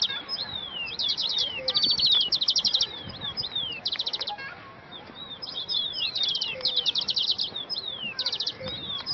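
Small songbirds chirping: rapid high trills alternating with short downward-sliding whistles, almost without pause.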